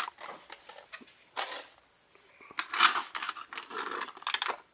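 A toy's cardboard and plastic packaging being opened by hand: irregular rustling and scraping with light clicks, one burst about a second and a half in, then a busier stretch over the last two seconds.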